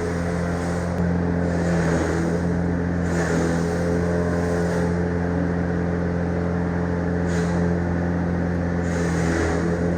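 An engine running steadily at constant speed, a low, even drone with a fixed pitch.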